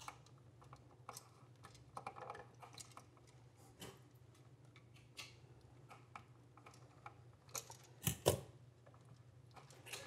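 Faint scattered clicks and taps of a bare copper ground wire being bent with pliers and hooked under the ground screw of an electrical receptacle, with two louder clicks about eight seconds in, over a faint low hum.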